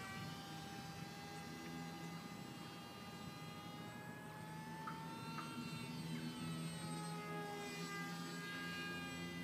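Electric motor and propeller of a small radio-controlled flying wing whining in flight, its pitch drifting slowly up and down as the plane manoeuvres and the throttle changes.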